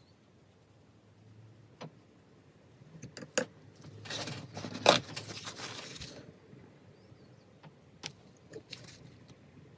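A few sharp clicks, then about two seconds of rustling and clinking with one sharp tap in the middle, as small art tools are handled. A few light ticks follow near the end.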